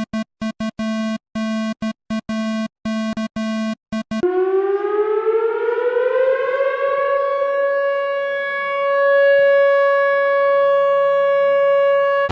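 Synthesized emergency alert alarm: a buzzy tone stutters on and off in irregular pulses for about four seconds, then a siren winds up in pitch and holds a steady wail.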